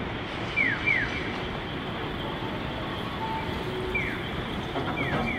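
Steady traffic rumble with short, falling whistled chirps over it: three in the first second, one about four seconds in, and two more near the end.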